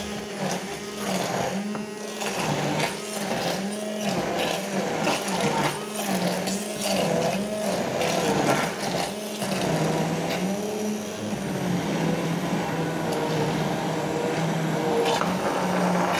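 Handheld stick (immersion) blender running in a saucepan, puréeing chillies, onion, garlic and tomato. Its motor pitch repeatedly sags and recovers as it works through the mixture, with clattering and knocking of the blender shaft against the pot and the lid held over it.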